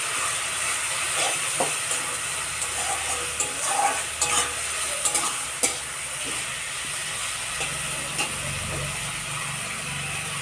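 Chopped banana flower and freshly added ground spices frying in oil in a kadai, sizzling steadily, while a spatula stirs them, scraping and knocking against the pan every so often.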